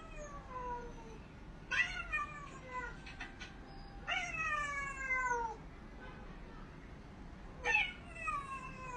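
A black-and-white cat meowing in long, drawn-out calls, each sliding down in pitch. Four meows in all: one fading out just at the start, then three more about two seconds apart, the last near the end.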